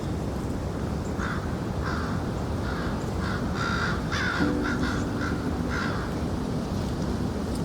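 Crows cawing: a run of about ten short caws, roughly two a second, starting about a second in and stopping about six seconds in, over a steady low rumble.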